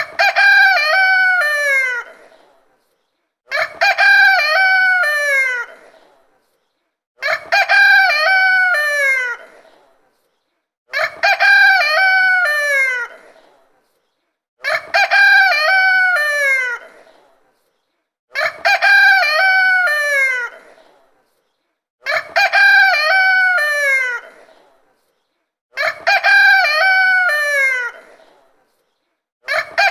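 Rooster crowing cock-a-doodle-doo over and over at even intervals, about once every three and a half to four seconds, roughly eight times. Each crow lasts about two and a half seconds, breaks into several notes and ends on a long falling note, with silence between crows.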